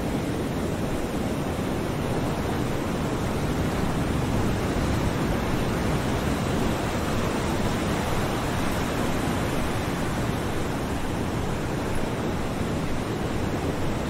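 Ocean waves lapping against the shore, heard as a steady, unbroken rush of surf.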